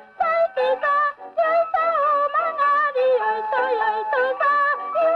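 Background music with a lead melody in short notes that waver in pitch.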